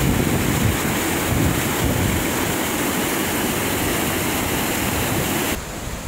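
Rushing water of a small mountain stream tumbling over rocks, a loud steady hiss, with wind buffeting the microphone in low rumbling gusts. The sound drops sharply to a quieter level near the end.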